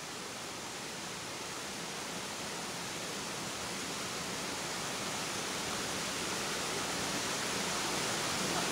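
Shallow stream rushing over rocks: a steady hiss of running water that grows gradually louder.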